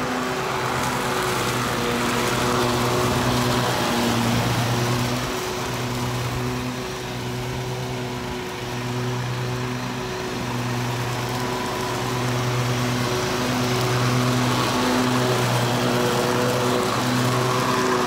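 Toro zero-turn riding mower's engine running steadily as it mows through leaf-covered grass. It grows fainter in the middle as the mower drives off, then louder again as it comes back close.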